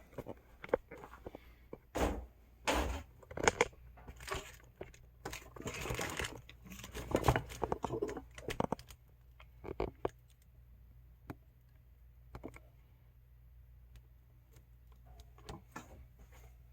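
Handling noise: irregular knocks, clicks and rustling as things are picked up and moved about, busy for the first several seconds and then thinning to occasional ticks.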